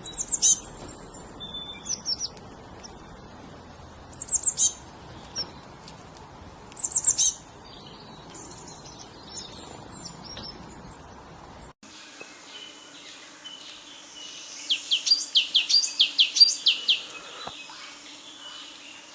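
Songbirds chirping: short, high phrases every couple of seconds. About two-thirds through, the background changes abruptly, and a different bird gives a rapid run of high notes.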